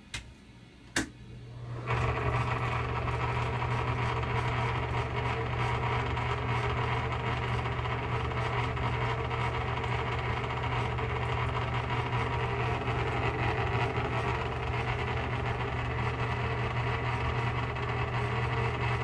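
High-velocity electric fan, two sharp clicks and then the motor starting up about two seconds in and running steadily with a strong low hum and a broad rough noise from its bad motor bearings, which are dry and need a lot of oil.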